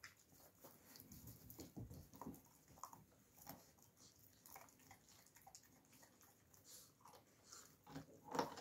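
Alabai (Central Asian Shepherd) puppy gnawing and chewing a lump of raw meat: faint, irregular wet clicks and crunches, with a louder crunch near the end.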